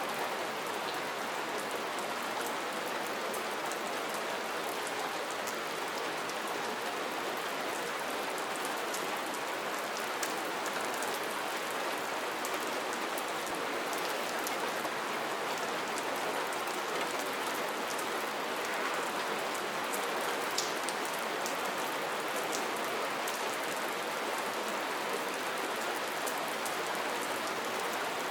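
Soft, steady rainfall: an even hiss of rain with scattered sharper drop ticks.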